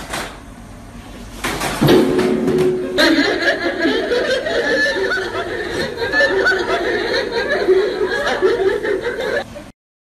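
A loud crash about two seconds in as a person falls to the floor when his chair is pulled away, then a group laughing hard until it cuts off abruptly near the end.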